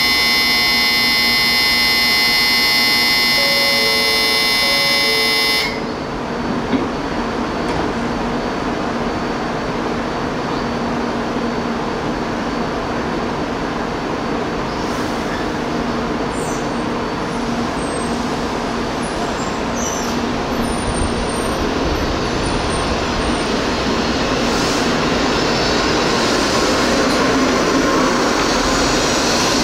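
A Shinkansen platform departure bell rings steadily for about six seconds, then stops abruptly. A steady train rumble follows and slowly grows louder.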